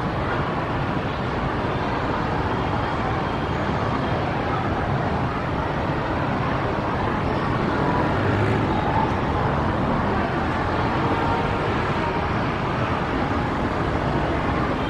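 Steady distant rumble of a Boeing 747-400 freighter's four jet engines at taxi power, mixed with a constant outdoor traffic hiss.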